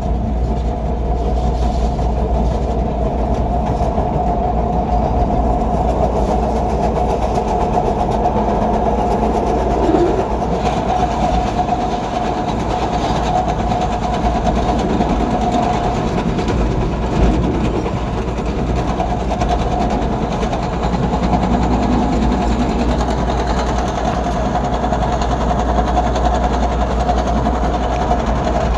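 CTA Purple Line train running along elevated track, heard from inside the rear car: a steady rumble of wheels on rail with a steady whine over it. Two brief knocks stand out, about a third of the way in and a little past halfway.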